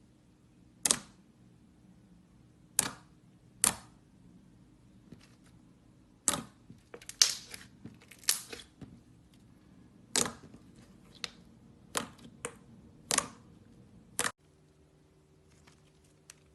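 Slime being squeezed and pressed, giving about a dozen sharp, short pops and clicks at irregular intervals.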